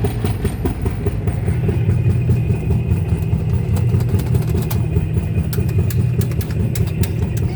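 Motor of an RG Mitchell Fire Fox police helicopter kiddie ride running loudly as the ride moves, a steady low hum, with scattered light clicks from about three seconds in.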